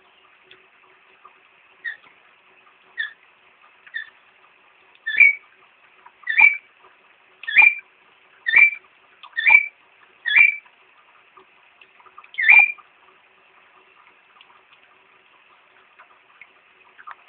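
A parrot giving a run of about ten short, sharp calls, a few seconds apart at first and then about one a second and much louder from about five seconds in, stopping after about twelve seconds. A faint steady hiss runs underneath.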